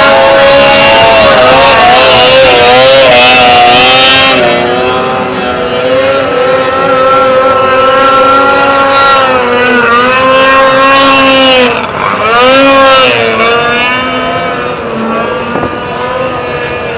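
Racing snowmobile engine at high revs, loudest for the first few seconds. Its pitch wavers, drops sharply and climbs back about twelve seconds in, then the sound fades toward the end.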